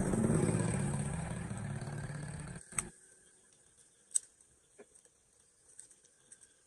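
A loud, low rumbling rush that cuts off abruptly about two and a half seconds in. Then it is quiet, with scattered light clicks and small splashes as twigs and leaves are raked and pulled out of shallow floodwater.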